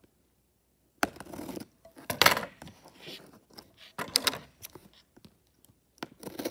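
Scissors cutting through the packing tape on a cardboard shipping box, with scraping and rasping of blade, tape and cardboard. The strokes are irregular and start about a second in, the loudest about two and four seconds in.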